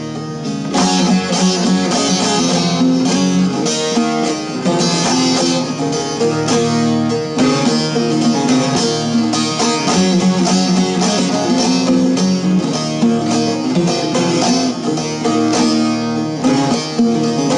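Bağlama (long-necked Turkish saz) played alone in a fast, strummed instrumental passage, its rapid strokes ringing over sustained low notes, with no singing.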